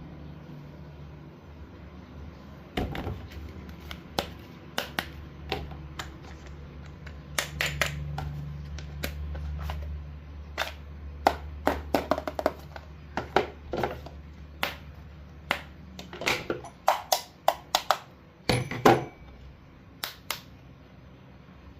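Irregular light clicks and knocks over a low steady hum, coming thicker in the second half, with a louder knock about nineteen seconds in.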